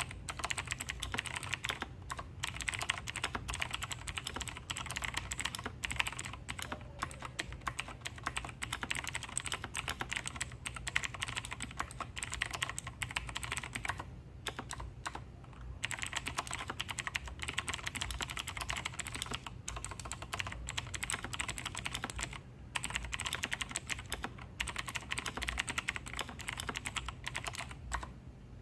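Fast typing on a Razer BlackWidow Tournament Edition Chroma V2 mechanical keyboard with clicky Razer Green switches: a dense, continuous stream of key clicks. There is a short pause about halfway through and a brief one later.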